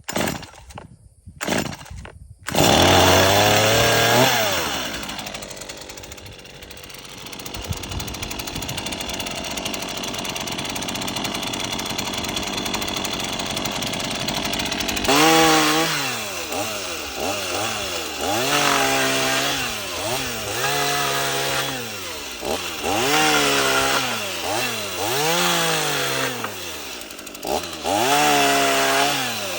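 Stihl MS 162 small two-stroke chainsaw. After a few short bursts it starts running loud about two and a half seconds in, then holds a steady run. From about halfway it is revved up and down over and over, roughly once every second and a half.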